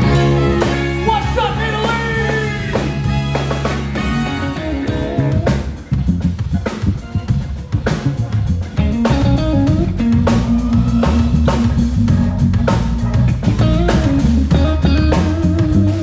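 Band playing live: electric guitar, drum kit and bass. Held, sustained chords at first, a brief drop about six seconds in, then a steady drum groove with a bass line for the rest.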